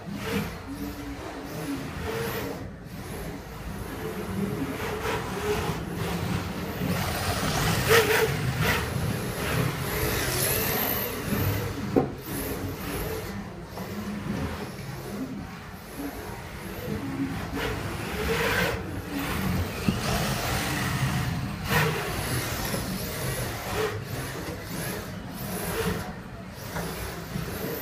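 Electric radio-controlled drift cars running on a carpet track: motor whine rising and falling as they accelerate and slow, over the hiss of tyres sliding on the carpet, with a couple of sharp knocks.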